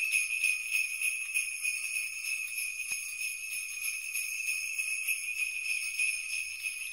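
Sleigh bells jingling steadily, shaken in a fast continuous shimmer.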